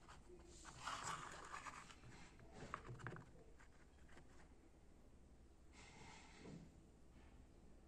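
Faint handling noise: soft rustling and scraping with a few light ticks as a hand moves a cable at the base of a lamp, then a short rustle near the end.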